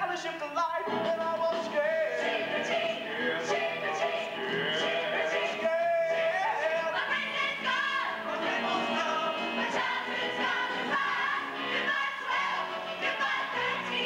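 Stage show music with singing voices over a band, playing for a dance number; the voices hold notes with a noticeable waver.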